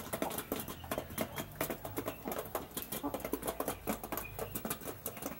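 Half-grown chickens pecking at their fattening feed: a quick, irregular patter of beak taps.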